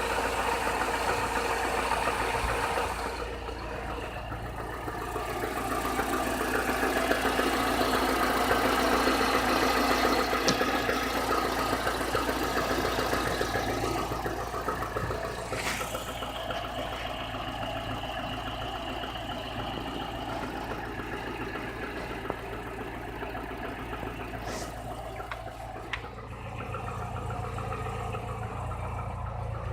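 Chevrolet Niva's four-cylinder petrol engine running with a knock that is getting worse by 45,000 km. The cylinder head has already been replaced, and the owner is unsure whether the knock comes from the bottom end.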